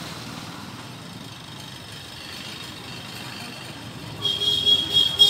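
A vehicle horn honking in a few quick, loud blasts near the end, over a steady background rumble of street traffic.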